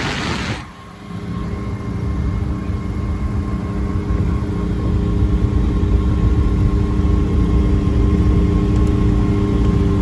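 CGS Hawk ultralight aircraft's engine and propeller running steadily, growing a little louder over the first few seconds. Before it, a loud hiss cuts off suddenly about half a second in.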